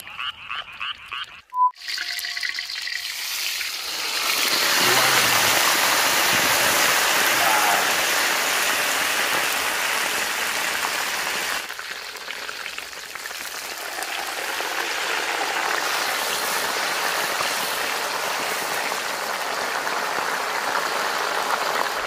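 Whole cabbage kimchi frying in hot pork fat in a wok: a loud, steady sizzle that starts about two seconds in, swells about two seconds later, and drops off briefly near the middle before carrying on. The first second or so holds rapid frog-like croaking pulses.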